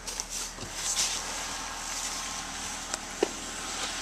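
Power sunroof of a 2011 Nissan Sentra SE-R sliding open, its electric motor running steadily, with a couple of light clicks near the end.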